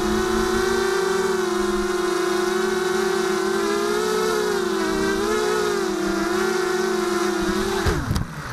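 Mini FPV drone's electric motors and propellers whining steadily with a gently wavering pitch as it flies low over the ground. Near the end they wind down in a quick falling whine as the motors stop.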